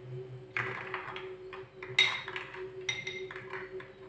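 Glass bowl clinking and knocking against a plate as chopped chickpea salad is tipped and slid out of it: a few sharp clinks, the loudest about two seconds in, over a steady low hum.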